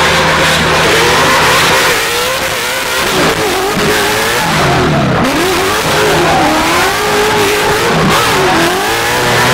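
A race car's engine revving hard, its pitch rising and falling again and again as the throttle is worked.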